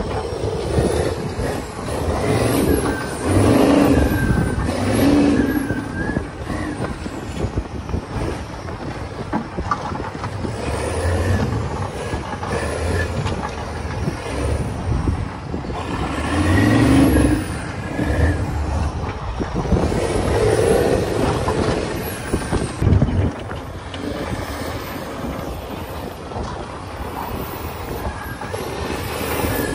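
Truck driving on a snowy dirt trail: engine running and tyre noise, growing louder and easing off several times.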